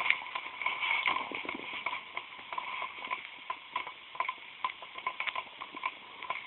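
A heap of burning wooden matchsticks crackling, with irregular small pops and ticks, busier in the first second or two.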